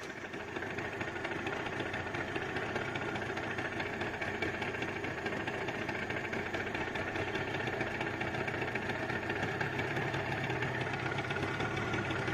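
A small boat's outboard motor running steadily.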